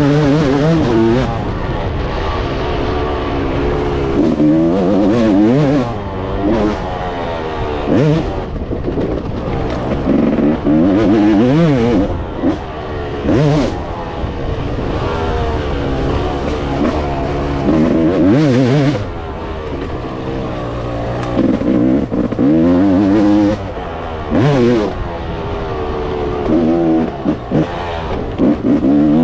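Yamaha YZ motocross bike engine, heard from on board, revving up and falling back again and again as the rider accelerates and eases off around the track. The pitch climbs and drops in repeated sweeps every few seconds over steady wind and ground noise.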